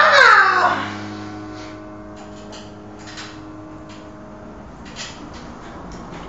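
Studiologic Numa Compact digital piano: a final chord rings and fades out over a few seconds, with a quick falling sweep of notes at the very start. Then only faint room noise with a few small knocks.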